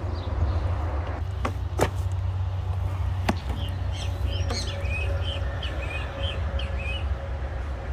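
A bird singing a quick run of repeated chirps from about four seconds in, over a steady low rumble, with a few sharp clicks in the first few seconds.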